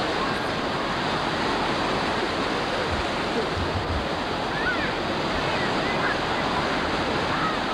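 Ocean surf breaking and washing in around the waders, a steady unbroken rush of water noise.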